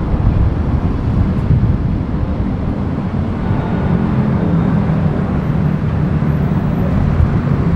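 Road traffic noise picked up by a microphone outside a moving car: a steady low rumble of engines and tyres, with a low engine hum settling in from about halfway through.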